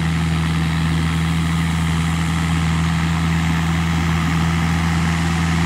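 Kubota M7950DT cab tractor's diesel engine running steadily at working revs, a constant low drone with no change in pitch.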